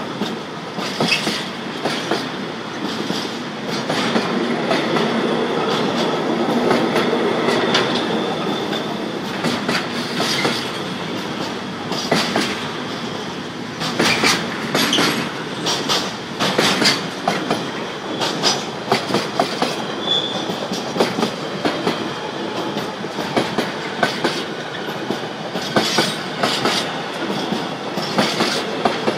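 Freight train of container and trailer wagons rolling past: a steady rumble of steel wheels on rail, broken by sharp clacks in groups as the wheelsets cross rail joints.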